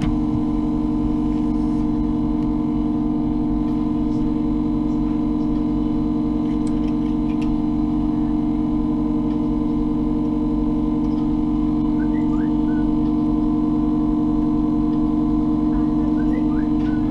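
A steady electrical hum from the repair-bench equipment, several held tones at a constant level, with a few faint light clicks.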